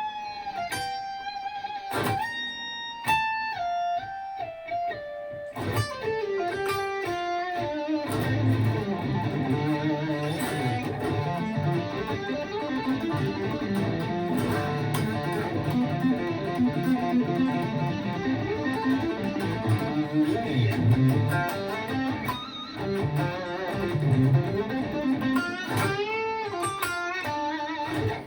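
Gibson ES-335 semi-hollow electric guitar played through an amp. It opens with single-note lead lines with string bends, then turns to busier playing with low notes from about eight seconds in.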